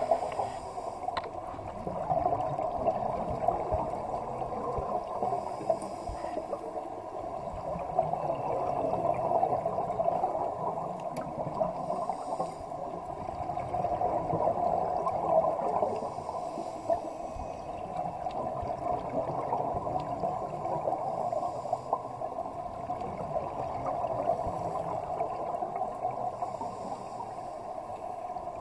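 Underwater ambience: a steady gurgling rush of scuba divers' exhaled bubbles, with faint hissing breaths and a few small clicks, heard through an underwater camera housing.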